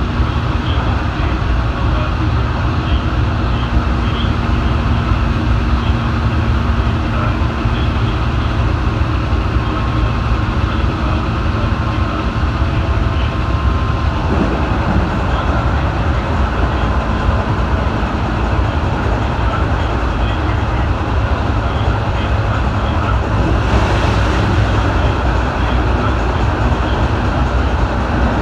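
A JR West 221 series electric train running, heard from on board the motor car: a steady rumble of wheels and running gear. A low steady hum stops about halfway through.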